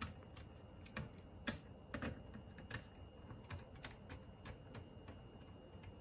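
Faint, irregular small clicks and ticks as a screwdriver hand-tightens the small screws holding the cooling fan inside a mini desktop PC.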